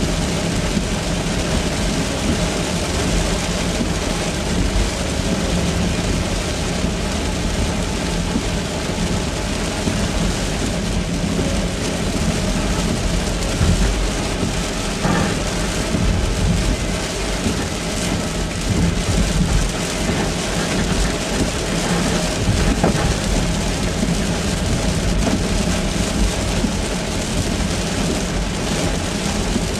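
Heavy rain beating steadily on a moving car's roof and windscreen, heard from inside the cabin, mixed with tyre and road noise.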